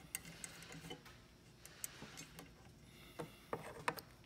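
Faint, scattered clicks and light metallic clinks as the small brass fittings of a model steam locomotive's pressure-gauge kit are handled and screwed in by hand. A cluster of sharper clinks comes near the end as a wrench is taken up from the bench.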